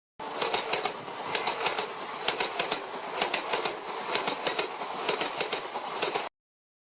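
Passing train, its wheels clacking over the rail joints in pairs about once a second over a steady rumble. It starts and cuts off abruptly.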